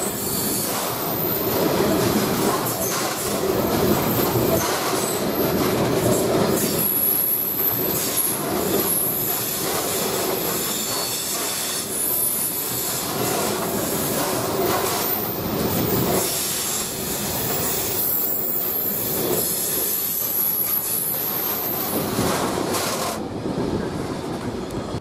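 Loaded JNA ballast wagons of a freight engineering train rolling past on jointed track, wheels rumbling and clattering with a thin, high-pitched squeal from the wheels. The squeal stops and the noise falls away near the end.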